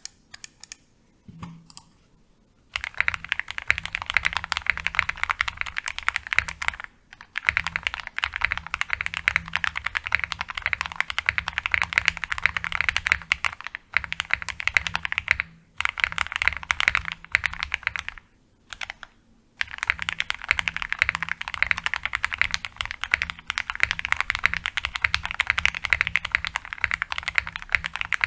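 Typing on a jris75 mechanical keyboard built with CJ switches on the alphas, KTT Rose switches on the function keys, a POM plate and DCX keycaps: fast runs of keystroke clacks broken by a few short pauses. It starts almost quiet, with only a stray click or two, before the typing begins.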